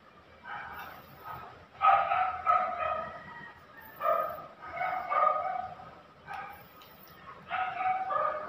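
A dog barking repeatedly in short calls, in clusters of two or three.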